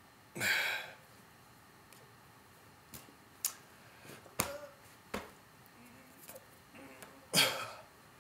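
A person blowing out two breathy puffs of air, one near the start and one near the end, with several sharp taps and clicks in between from hands striking each other while signing.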